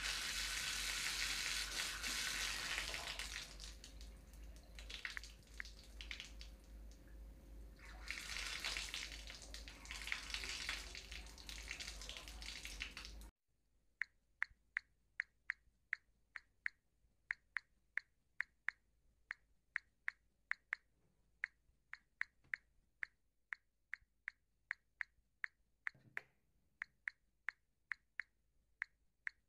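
Wall tap running, water splashing loudly in two spells as hands are washed under it. About thirteen seconds in the water cuts off suddenly, and quick, irregular light clicks follow, two or three a second: a mobile phone's keypad tap sounds during texting, with one dull thump near the end.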